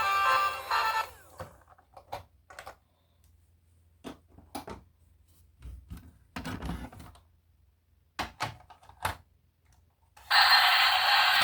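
Music ends about a second in, followed by scattered short clicks and knocks of toys being handled. A loud, steady, hissing sound starts near the end.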